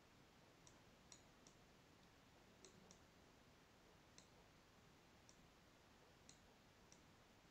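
Faint, irregularly spaced computer mouse clicks, about nine in all, over near-silent room hiss.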